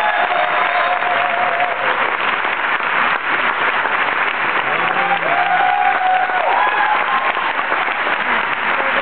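Theatre audience applauding steadily after a tango performance has ended, with a few voices calling out over the clapping about five to seven seconds in.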